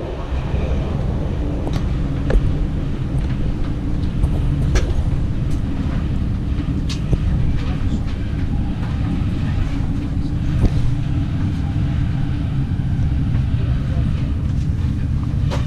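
Inside a passenger carriage of an SBB Interregio train, a steady low rumble of wheels on rail, with scattered sharp clicks, as the train runs through a station.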